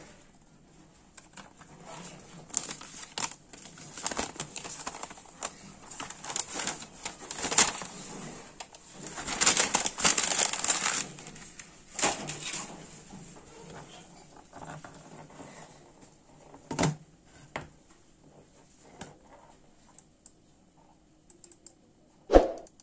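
A folded paper instruction leaflet rustling and crinkling as it is handled and folded, loudest around ten seconds in. Later come a few sharp knocks of objects being set on a wooden table, with a loud one shortly before the end.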